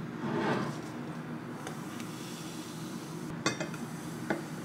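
Kitchenware being handled: clinks and knocks of a glass measuring jug and metal cups against each other and the counter, with a few sharp clicks near the end.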